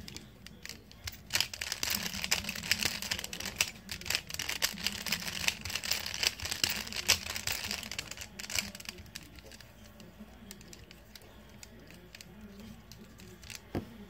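Plastic Rubik's cube layers being turned by hand in quick succession: a dense clatter of small plastic clicks, busiest in the first half and thinning out after about eight seconds.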